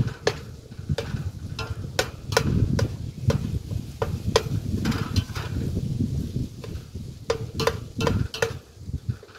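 Metal spatula scraping and clinking against a stainless steel pot, breaking ground meat into small chunks as it browns. Irregular sharp metallic taps, about one or two a second, over rough scraping.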